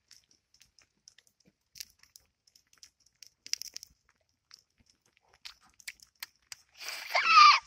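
Scattered crackles and pops from oysters roasting on a wire grate over an open wood fire. Near the end comes a loud, brief hiss carrying a falling squeal.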